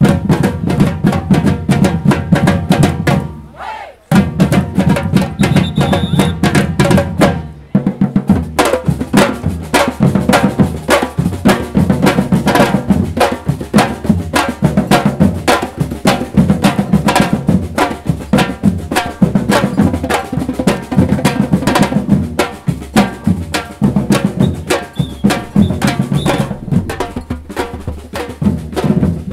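Street drum band of shoulder-strapped bass drums and snare drums playing a fast, driving rhythm together, with two short breaks in the first eight seconds.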